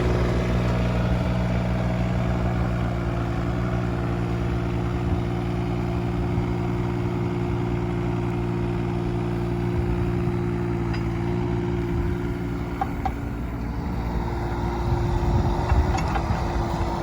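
Kubota K008-3 mini excavator's diesel engine running steadily with a constant whine. About three-quarters of the way through, the engine note changes and its low tones fade, and a few light clicks follow near the end.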